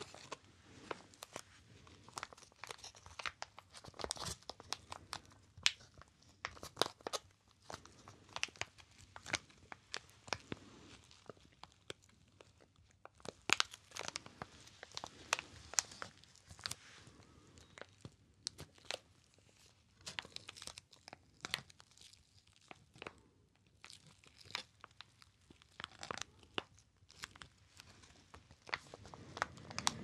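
Card-and-plastic retail blister pack crinkled and flexed between the fingers close to the microphone: dense, irregular sharp crackles in clusters with short lulls.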